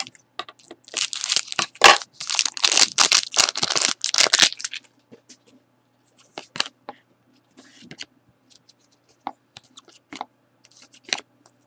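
Foil wrapper of a Panini Select hockey card pack being torn open and crinkled for about four seconds. After that come a few faint clicks and rustles as the cards are slid out and handled.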